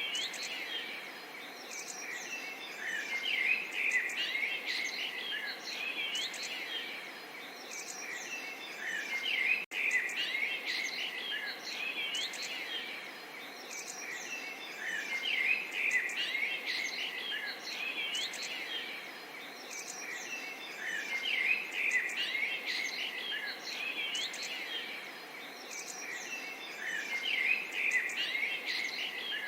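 Chorus of many small birds chirping and twittering over a steady background hiss, swelling and easing in a pattern that repeats about every six seconds; the sound briefly cuts out about a third of the way through.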